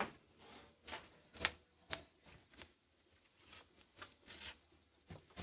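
Wood fire crackling in a wood-fired pizza oven: scattered, irregular sharp snaps and pops, about a dozen, with the loudest around a second and a half and two seconds in.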